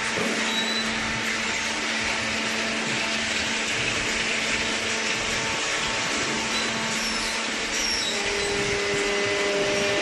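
Cardboard shredding and baling machinery running steadily: an even whirring noise over a low steady hum, with a second steady tone joining about eight seconds in.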